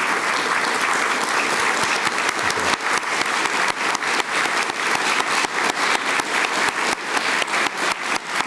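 Audience applauding: a dense wash of clapping that thins from about three seconds in, separate claps standing out more and more.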